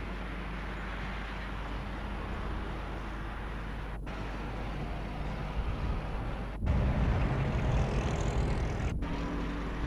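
Outdoor street and traffic noise on an old news-film soundtrack: a steady hiss with a low hum, broken by brief dropouts at the shot changes. About two-thirds of the way in it gets louder, with a low rumble of vehicle traffic.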